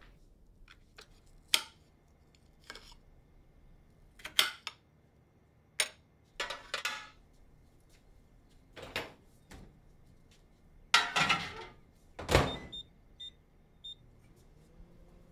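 Kitchen clatter: a plate and dishes knocked and set down, with several sharp thunks. Near the end, a few short beeps from a microwave oven's keypad, then the microwave's steady hum as it starts running.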